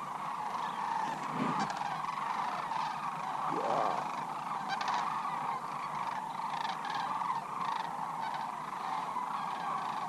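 Large flocks of sandhill cranes calling as they fly overhead: a continuous chorus of many overlapping calls.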